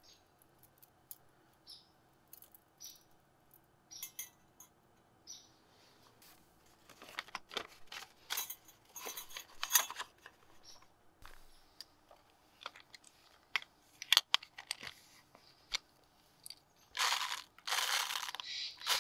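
Small metallic clicks and taps of a wire pour-over coffee dripper being set on a stainless steel cup, then a paper coffee filter crinkling as it is fitted into the wire cone. Near the end comes the loudest part, a dense rustle of ground coffee pouring into the paper filter.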